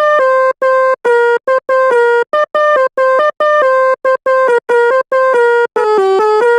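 Sampled Basuri telolet bus-horn notes played as a melody in FL Studio Mobile. Short horn tones hop between a few pitches with brief gaps between them. Near the end the notes come quicker, without gaps, and run lower.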